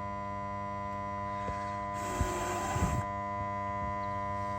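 A short rush of blown air, lasting about a second and starting about two seconds in, over a steady electrical hum.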